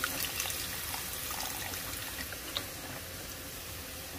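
Beef stock pouring from a carton into a pot of browned beef and potatoes: a steady splashing pour of liquid that tapers off.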